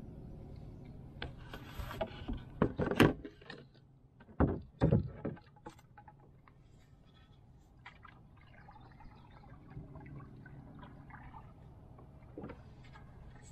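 Wooden paddle working a canoe: several loud knocks and splashes in the first five seconds or so, then quieter small knocks and water sounds.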